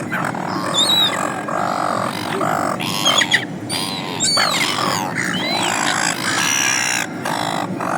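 A flock of gulls squawking: many short, harsh calls overlapping one after another, with higher chirps among them.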